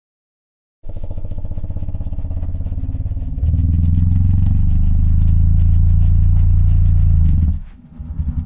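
An engine running with an even, rapid pulse. It starts abruptly about a second in, gets louder at about three and a half seconds, and drops away shortly before the end, then briefly picks up again.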